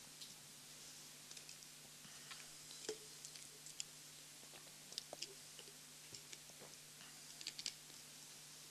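Near silence: room tone with a faint steady hum and scattered small clicks and taps, a few grouped near the end.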